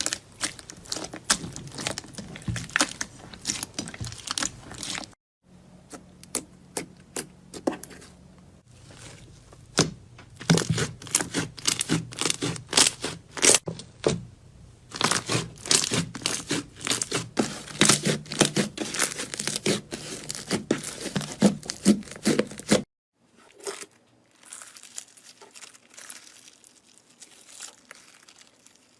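Slime being squeezed, stretched and pressed by hand, making dense, irregular sticky pops and crackles. The sound cuts off abruptly about five seconds in and again near the end, where it turns quieter.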